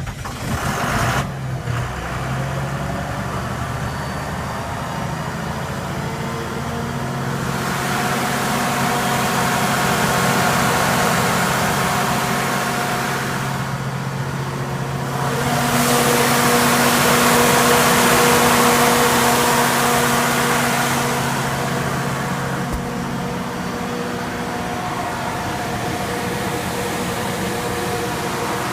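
Cummins diesel engine of a 105 kW standby generator in a sound-attenuated enclosure running steadily. It grows louder twice, for a few seconds each time.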